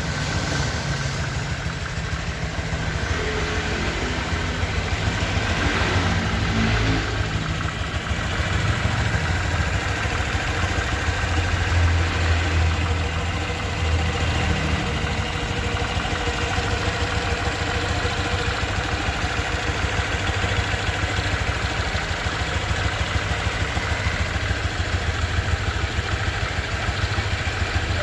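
Honda Vario 125 scooter's single-cylinder engine idling steadily with an even low pulse, at about 1,000 km of running-in; the owner finds it smoother now.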